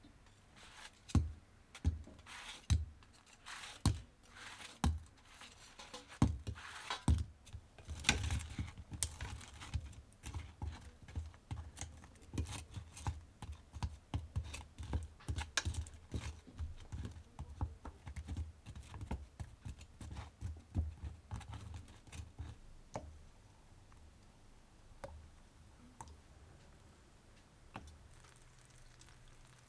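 Irregular sharp taps and clicks of kitchen utensils being handled and set down on a counter. They are dense for the first two-thirds, then thin out to a few faint ticks.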